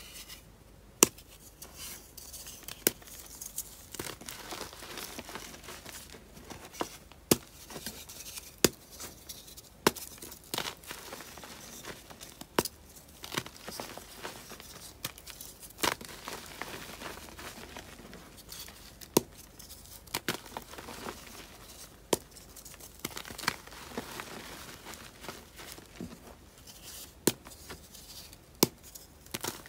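A heart-shaped gym chalk reform being broken and crushed by hand: irregular sharp snaps as chunks crack off, among gritty crunching and crumbling into loose chalk powder.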